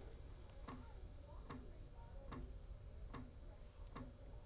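Faint, even mechanical ticking, five ticks spaced a little under a second apart.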